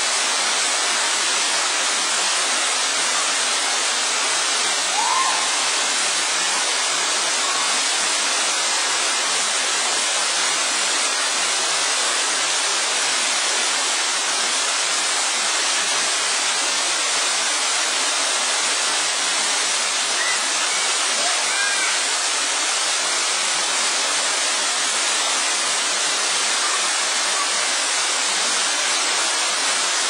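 Tall waterfall plunging into a pool: a steady, even rush of falling water.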